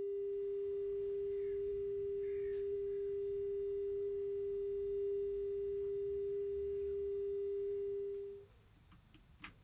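A steady single-pitched telephone line tone from a payphone receiver holds for about eight seconds and then stops. Near the end, a short click as the handset is put back on the payphone.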